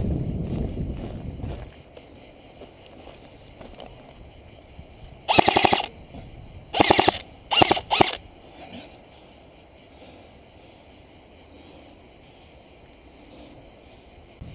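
Airsoft rifle firing four short full-auto bursts in quick succession, from about five to eight seconds in, each a rapid run of clicks. In the first couple of seconds, running footsteps and brush rustling.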